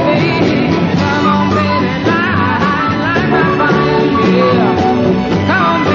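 Live band music with guitar, an instrumental passage of a rock-style song with no words sung.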